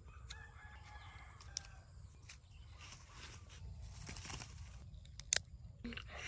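A rooster crows faintly about half a second in. Then a rustle as a handful of small plastic capsule toys spill onto grass, and a sharp plastic click near the end.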